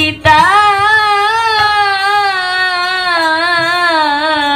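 A woman's voice holding one long sung note in a Bengali devotional song, with a steady wavering vibrato. The note slides slowly down in pitch toward the end.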